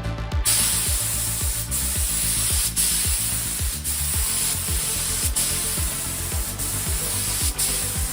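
Loud, steady high hiss of a spray, broken by short pauses about once a second, over electronic music with a steady beat.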